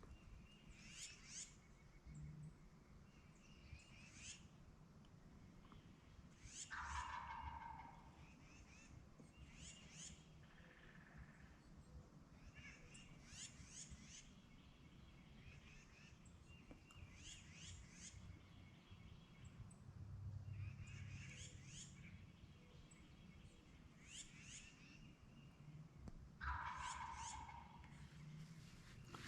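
Wild turkey tom gobbling hard, two loud rattling gobbles, one about seven seconds in and one near the end, with small birds chirping in between.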